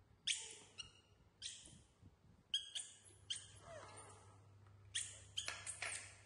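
Young macaques squeaking and chirping in short high calls, some dropping in pitch, with a few sharp clinks of plates being set down.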